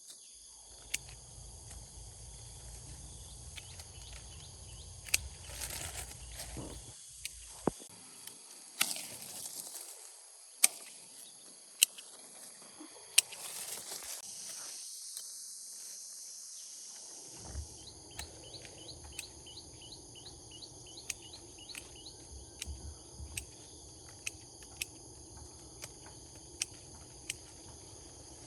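Insects trilling steadily in a high, even drone, with sharp clicks and snaps every second or so and a low rumble at times.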